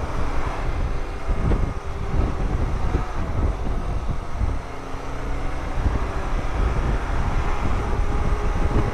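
Motorcycle engine running under way, with road noise and a heavy, uneven wind rumble on the helmet camera's microphone.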